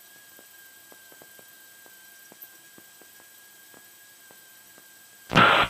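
Faint hiss with a steady high-pitched whine and light ticking on the aircraft's radio and intercom audio feed, with no engine heard. Near the end, a short loud burst of radio static.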